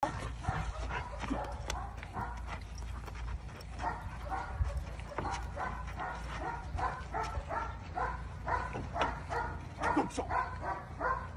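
A dog barking and yipping over and over in short, high-pitched calls, about three a second.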